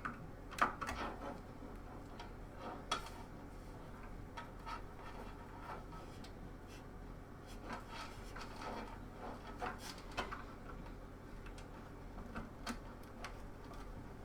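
Scattered light clicks, taps and rubbing of power supply cables and plastic connectors being handled and routed inside a PC case while a power connector is fitted.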